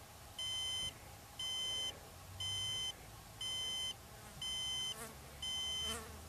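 Rocket altimeter beeping out its recorded peak altitude: high, steady half-second beeps, one a second. Here it counts off the final digit, 8, of a 2,888-foot apogee reading.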